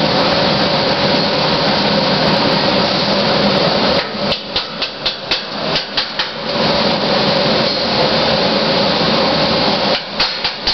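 Steady, loud workshop noise, broken from about four seconds in, for some three seconds, and again near the end by a run of sharp metal knocks and clatter.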